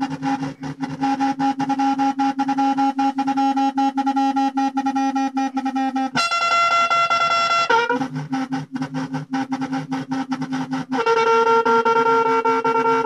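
Electric trumpet played through Korg Kaoss Pad effects: long held notes layered and processed, broken up by a rapid choppy stutter. About six seconds in a higher note is held for a second and a half, and near the end a new pitch is held.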